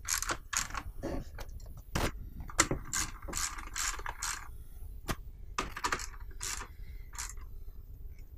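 Ratchet socket wrench clicking in irregular runs of short strokes as a nut is tightened down on a battery terminal.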